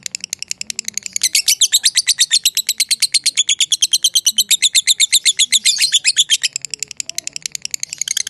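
Lovebird giving its long rapid chattering call ('ngekek panjang'): a fast, unbroken run of sharp, high notes, about a dozen a second, loudest from about a second in to past the middle.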